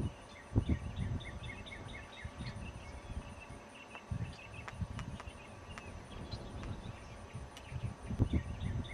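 Marsh ambience: quick high chirps repeated in short series, a few a second, over a low rumble, with a couple of low thumps about half a second in and near the end.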